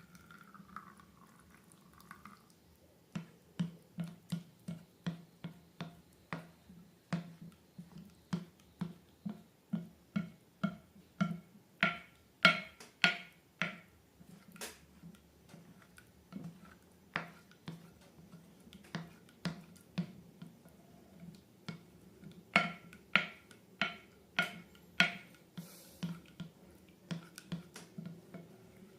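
Slime being pressed and poked by hand, giving a long run of wet, sticky clicks and pops, about two a second, some much louder than others.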